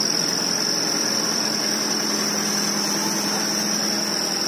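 Dump truck's diesel engine running at raised revs with a steady high-pitched whine, typical of the hydraulic tipping pump working the bed. The engine note drops near the end.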